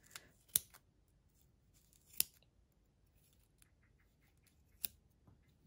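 Small, very sharp scissors cutting through yarn loops wound on a pompom fork: three sharp snips at uneven intervals, with a few fainter clicks between them.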